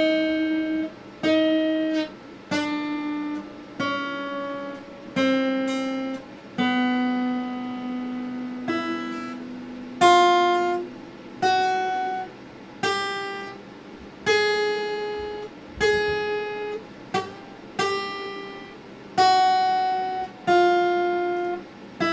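Acoustic guitar played slowly, one chord struck about every second and a half and left to ring out. One chord a third of the way through is held about twice as long.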